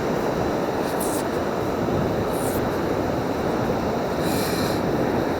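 Steady roar of surf, with a few short high hisses about one, two and a half, and four and a half seconds in.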